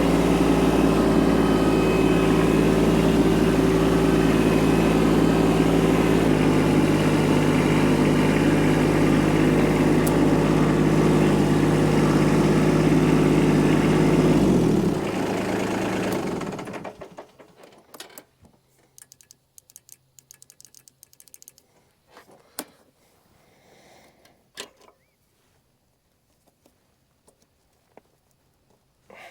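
A vehicle engine running steadily, then shut off about halfway through and winding down over a couple of seconds. Faint scattered ticks and clicks follow.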